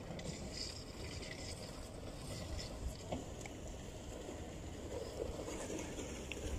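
Harbour ambience by the water: a steady low rumble with a few faint clicks.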